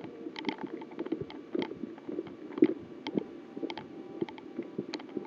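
Footsteps crunching along a rough dirt path, irregular steps about two a second, with rustling.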